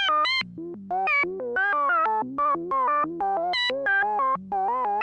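Synthesized digital signal sound effect: a fast run of short electronic beeping tones hopping between pitches, about five a second, in irregular groups with short gaps.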